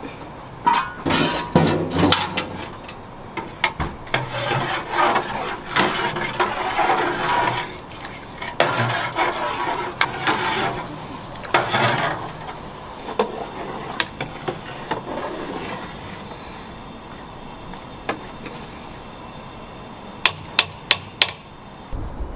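Kitchen prep work: irregular knocks and scraping on wood and crockery, giving way to scattered sharp clicks, four in quick succession near the end.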